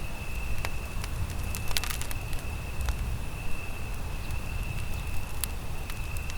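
Campfire crackling, with sharp irregular pops over a low rumble, and a steady high-pitched tone running underneath.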